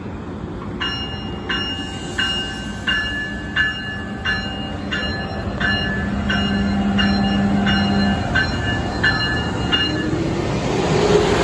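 Amtrak Acela Express power car's bell ringing steadily at departure, about fourteen strokes roughly 0.7 s apart. Near the end the train starts moving with a rising electric whine and growing rumble.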